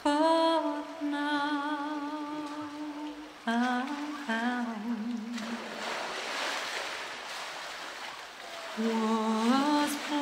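Background music: a slow melody of long, wavering held notes. About five and a half seconds in, the melody drops out and a polar bear plunging into the pool makes a splash of water lasting some three seconds, before the melody returns.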